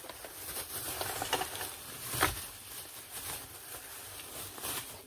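Rustling and handling noise as items are moved around and searched through, a crinkly scraping dotted with small clicks, with one sharper knock a little after two seconds in.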